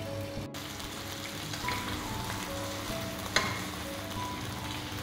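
Butter fish shallow-frying in a little oil in a pan, sizzling steadily from about half a second in, with one sharp click about three and a half seconds in. Soft background music with a simple melody plays throughout.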